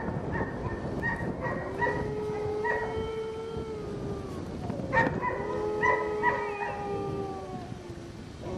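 Siberian husky howling like a wolf: two long howls held at a steady pitch, the second beginning about halfway through, with short yipping notes mixed in.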